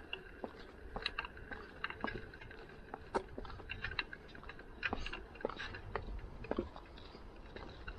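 Bicycle jolting over a rough surface: irregular clicks and rattles, several a second, over a low rumble of the ride.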